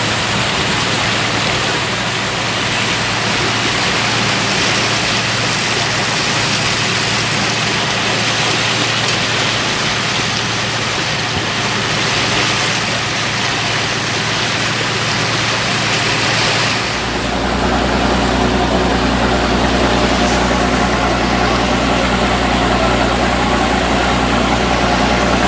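Rushing of water and wind past a moving boat with its engine running, an even steady noise. About two-thirds in it changes abruptly to a steady low engine hum with a fixed drone.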